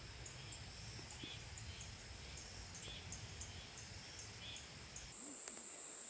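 Forest ambience: short high chirps repeat two or three times a second over a low rumble. About five seconds in the rumble drops away abruptly and a steady high insect buzz takes over.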